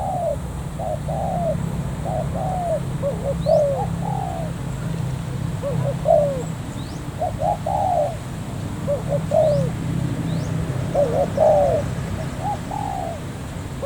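Spotted doves cooing in repeated phrases of arched, rising-and-falling notes, one phrase after another, over a steady low hum. A few faint high chirps of a small bird come in between.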